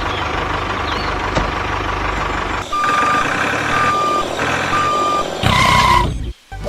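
Truck engine running steadily, then a reversing alarm beeps three times, about once a second, followed by a short, louder tone near the end.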